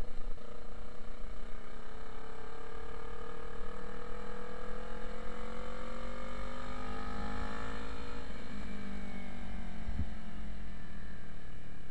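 Motorcycle engine under way: its note climbs steadily for about seven seconds as the bike accelerates, then drops back and holds steady as the throttle eases. A low rumble of wind on the microphone runs underneath.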